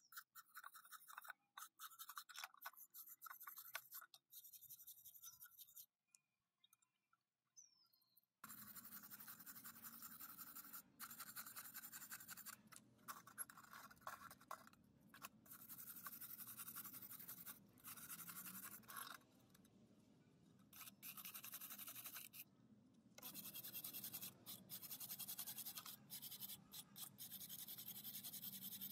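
Brush scrubbing rusty sheet metal, in repeated stretches broken by short pauses.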